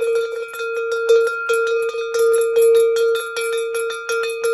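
Small metal tower bell, about 7¼ inches, rung by its clapper in quick repeated strokes, about three a second. Its clear, loud ring carries on between the strokes.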